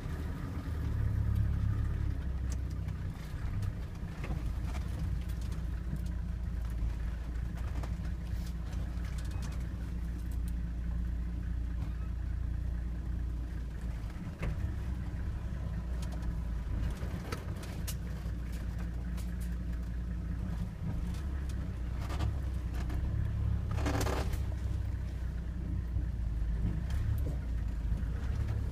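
Toyota Land Cruiser engine running at low speed, heard from inside the cabin as a steady low drone. The body knocks and rattles now and then as it crawls over rough, rocky ground, with a brief louder hiss near the end.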